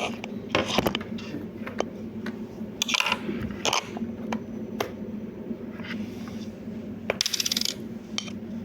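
Small clicks and scrapes of a battery compartment being worked open and coin-cell batteries being handled. Near the end comes a quick rattle of small strikes, a coin cell dropping and settling on a hard surface.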